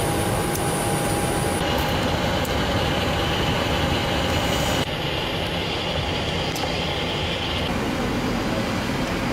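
Steady rushing noise inside a Boeing 737 flight deck, with a faint steady whine in the middle. Its tone shifts abruptly a few times.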